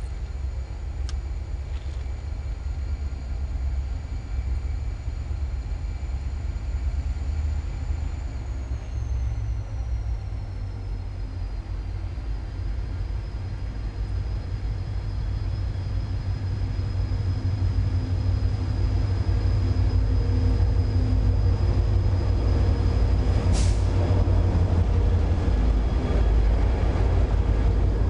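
A pair of GT22 diesel-electric locomotives heading a passenger train approach with a low, steady engine rumble that grows louder over the last ten seconds as they reach and start to pass. About three-quarters of the way through there is one short, sharp burst of sound.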